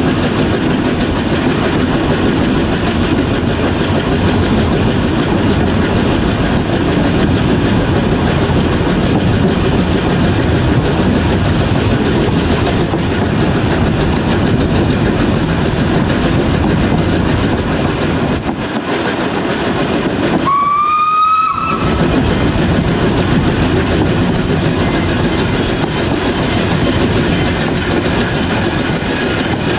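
Narrow-gauge steam train running along the track, a loud steady running noise with wheel clatter. About two-thirds of the way through, the locomotive's whistle sounds once, a short note that rises slightly.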